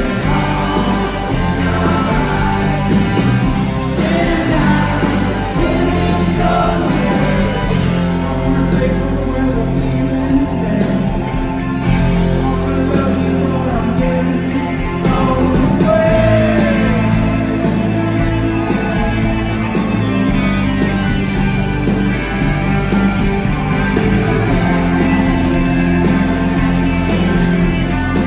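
Live rock band with electric guitars playing loud and steady, heard from the audience in a concert hall.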